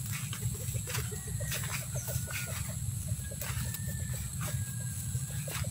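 Footsteps and rustling of a person walking along a bitter gourd row over dry soil and plastic mulch, above a steady low rumble. Soft, quick clucking of chickens repeats in the background.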